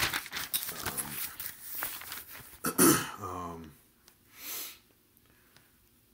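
Rustling handling noise, then about three seconds in a man clears his throat with a loud cough that trails off into a falling voiced grunt; a short breath follows about a second later.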